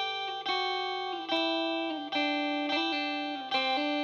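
Instrumental intro of a dream-pop song: an electric guitar with effects picking ringing chords, a new chord struck about every half second to a second and each one fading, while a lower note steps down in pitch.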